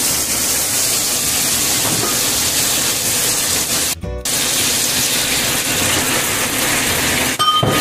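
Masala gravy sizzling as it fries in a nonstick frying pan, a steady hiss that breaks off briefly twice, about four seconds in and near the end.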